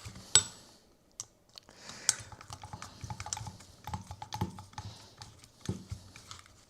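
Light, irregular clicks and taps of small metal parts being handled, as an exhaust header and its bolts are test-fitted on a model airplane's gas engine.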